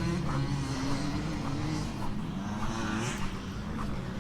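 Motocross bike engine idling steadily, its pitch wavering slightly.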